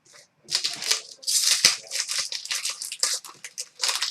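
Hockey trading cards and their pack wrappers being handled: a dense run of short, scratchy, crinkly rustles starting about half a second in.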